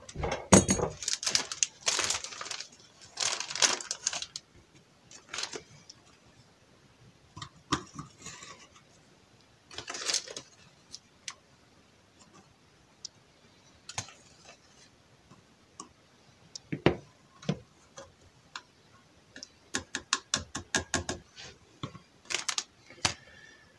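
A spoon and small plastic and glass containers being handled while dry ground ingredients are measured out: scattered clicks, taps and scrapes, with a quick run of rattling clicks near the end.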